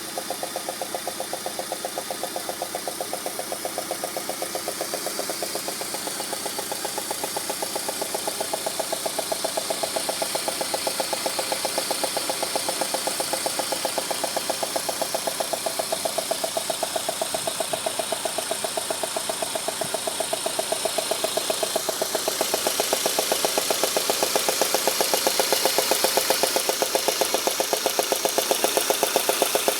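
Peugeot 106 GTI's 1.6 16-valve four-cylinder engine idling with a fast, regular knocking, a little louder in the second half. The knock was traced to a failed spark plug.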